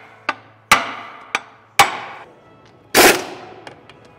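Sharp metal hammer blows on a differential housing: four strikes in the first two seconds, each ringing briefly. About three seconds in comes a short burst of rapid impacts from a power tool driving a long bit into the housing.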